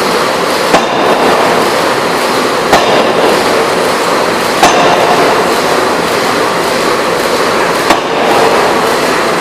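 Electro-hydraulic open die forging hammer striking four sharp blows about two seconds apart, over a loud, steady machinery noise.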